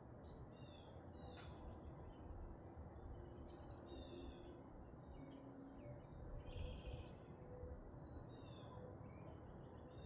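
Faint songbird chirps and short, quick falling notes, scattered through the whole stretch over a low, steady background rumble. A single sharp tick sounds about a second and a half in.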